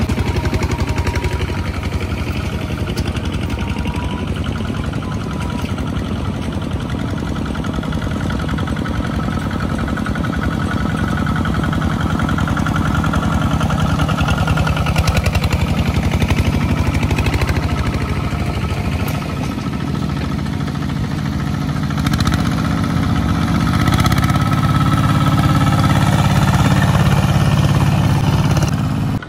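Kubota single-cylinder diesel engines of two-wheel walking tractors chugging at a fast even beat, working under load as they haul trailers of rice sacks through deep mud. The nearest engine grows louder over the last several seconds as it comes close.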